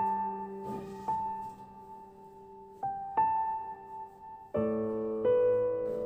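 Slow solo piano background music: single notes and chords struck every second or so, each left to ring and fade, with fuller chords near the end.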